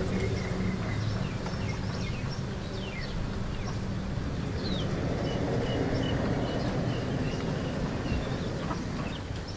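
Rural outdoor ambience: small birds chirping in short, falling notes over a steady low background noise, with a thin high note held for a few seconds in the middle.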